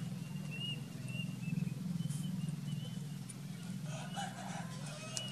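Baby macaque giving short, high, arched squeaks, one every half second or so, over a steady low hum.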